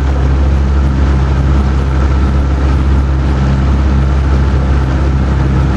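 Motorboat engine running steadily, a continuous low hum with an even rushing noise of wind and water over it.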